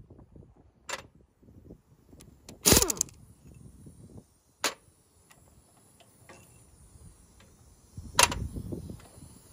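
Scattered sharp metallic clicks and clanks over low rumbling handling noise, the loudest a ringing clank about three seconds in and another near the end, from tools and parts being handled on a partly stripped engine.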